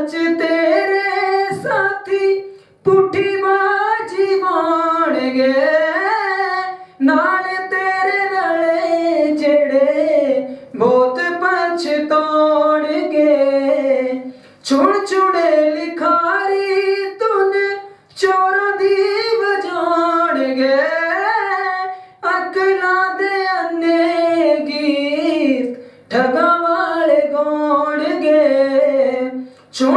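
A young boy singing a Punjabi song solo into a microphone, in long held, wavering phrases with short breaks for breath every few seconds.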